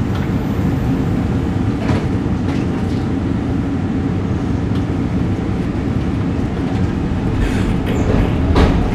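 SEPTA M4 subway car pulling out of a station, heard from inside the car: a steady rumble of wheels and running gear that grows slowly louder as it gathers speed, with a few light clicks.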